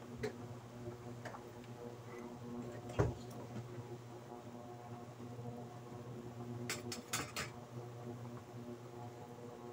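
Induction cooker running with a steady electrical hum under a simmering pot, while a metal spoon knocks against the stainless steel pot: once solidly about three seconds in, then a quick run of clinks a little past halfway.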